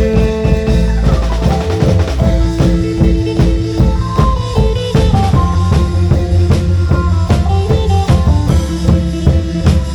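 Isan long-drum band music: steady, driving drumming under a melody of held, stepping notes.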